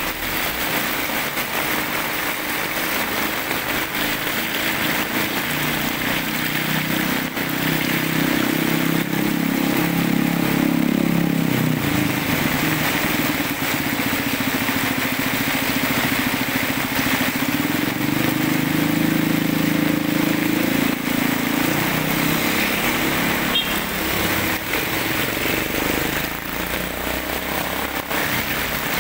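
Heavy typhoon rain pouring onto pavement and a roadside curb, with water running along the edge, a steady hiss throughout. A vehicle engine hums under the rain from about six seconds in, loudest in the middle, and fades out a little after twenty seconds.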